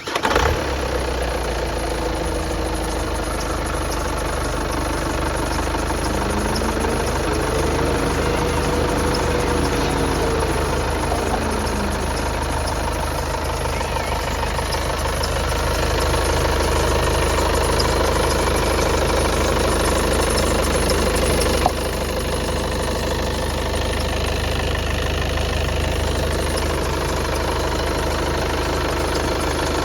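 Audi A3 2.0 TDI 150PS four-cylinder turbodiesel idling steadily, just after starting.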